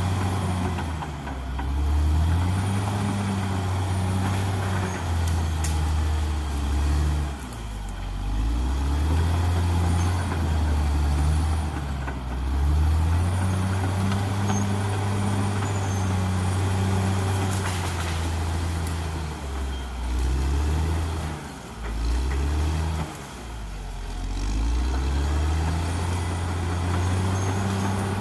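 Caterpillar D6R XL bulldozer's diesel engine working under changing load, its pitch rising and falling again and again as the machine pushes and eases off, with a few brief drops in revs.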